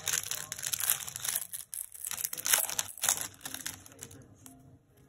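Crinkling and rustling of a trading-card pack wrapper being handled, with many short sharp crackles, busiest for the first three seconds or so and dying away near the end.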